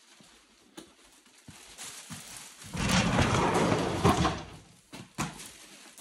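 A wooden-framed sliding door rumbling along its track for about a second and a half, ending in a knock, with another sharp knock about a second later.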